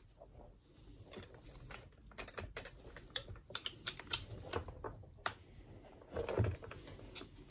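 Light, irregular clicks and scrapes of a flat-blade screwdriver prying and levering at the plastic nose housing of a reciprocating saw, with a cluster of sharper clicks in the middle.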